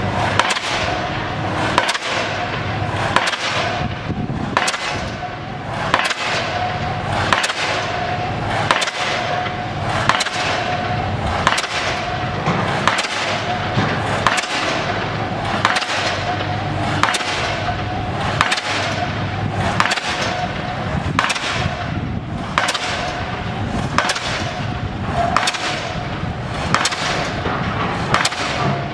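Pile hammer driving a bridge pile: sharp, ringing metal strikes at a steady beat of about one every second and a half, over a steady low hum.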